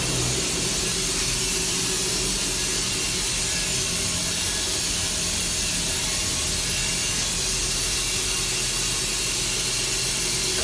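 Water running non-stop with a loud, steady rushing hiss that does not change.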